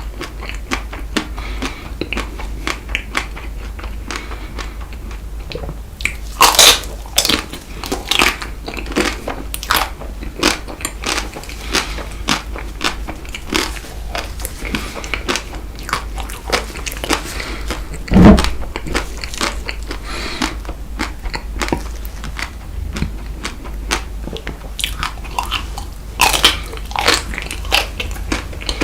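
Close-miked biting and chewing of chocolate-coated Tico ice cream bites, the hard chocolate shell crackling and crunching in quick sharp clicks. There are louder bites about six and a half seconds in and again near the end, and a single low thump about midway.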